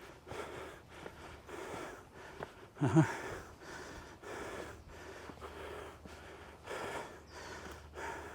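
Heavy, rhythmic panting of a hiker climbing a steep uphill trail, with breaths about once a second. About three seconds in comes one louder voiced exhale that falls in pitch.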